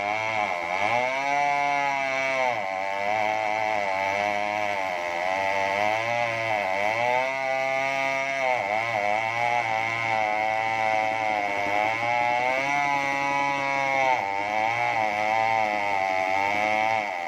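New West 070 two-stroke chainsaw with a 36-inch bar ripping a coconut palm log lengthwise at full throttle. Its engine pitch sags and recovers about every two seconds as the chain bites into the wood.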